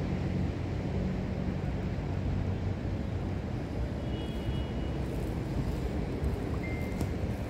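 Steady low outdoor street rumble with no words. Two faint short high tones come through, about four seconds in and again near the end.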